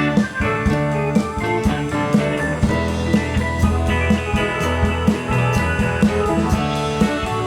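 A rock band playing an instrumental passage: guitars over a bass line, with a drum kit keeping a steady beat of about two hits a second.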